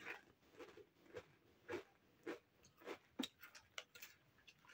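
Someone chewing crunchy nacho chips: faint, even crunches at about two chews a second, with a few sharper ticks in the second half.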